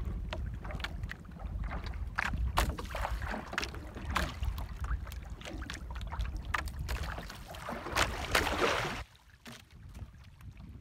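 Wind buffeting the microphone over water lapping against a small outrigger boat, with scattered knocks and clicks as a fish is handled and unhooked by hand. A louder rushing noise builds about eight seconds in and stops abruptly a second later.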